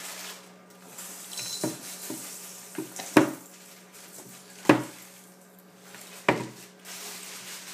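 Plastic sippy cup banged down on a wooden table: a few lighter knocks, then three loud knocks about a second and a half apart.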